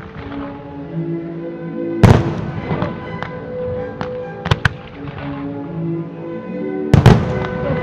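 Aerial firework shells bursting over music with long held notes. There is a sharp bang about two seconds in, a quick double bang around halfway, and the loudest bang near the end, with lighter crackling between them.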